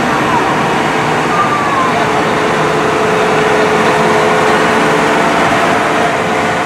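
John Deere 7R 310 tractor's engine running as the tractor drives slowly past, a steady whine over the engine noise.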